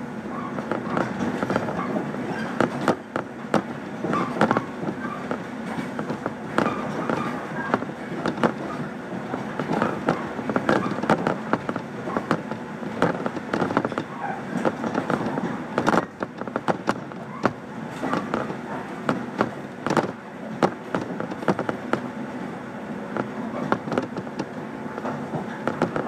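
115 series electric train running, heard from inside the carriage: a steady rumble of wheels on rail with frequent irregular clicks and clatter from the running gear and track.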